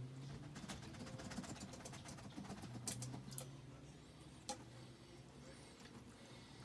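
Faint clicks and taps of an upturned stainless steel bowl on a wooden cutting board as it is worked loose and lifted off a baked lasagna dome, thickest a second or two in, with one sharp click about halfway through. A low steady hum runs underneath.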